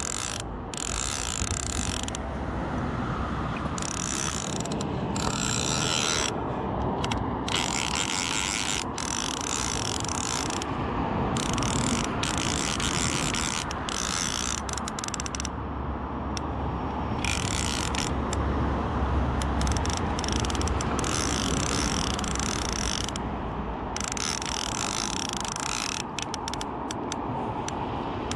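A fly reel's click-and-pawl ratcheting in long runs that stop and start every few seconds while a hooked salmon is played on the line, with a steady low rumble underneath.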